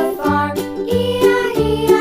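Upbeat children's background music with a steady beat, bass notes and a bright melody.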